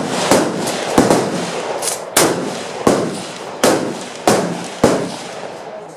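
Rifle gunfire from a firing line: about seven loud, sharp shots at uneven intervals, each followed by a short echo, with fainter shots in between.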